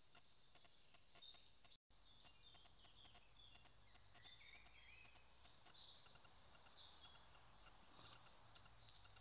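Faint woodland birdsong: many short high chirps and whistled phrases from several small birds over a steady low hiss, with a brief gap of total silence just under two seconds in.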